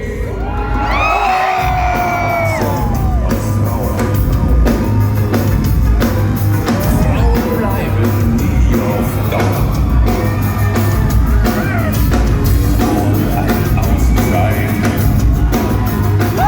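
Live heavy rock band playing loud, with a steady pounding beat and heavy low end, and a yelled vocal line over it about a second in.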